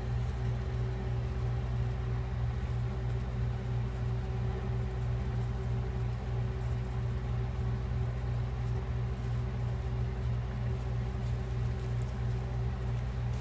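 A steady low machine hum, even and unchanging throughout, made up of a few fixed low tones.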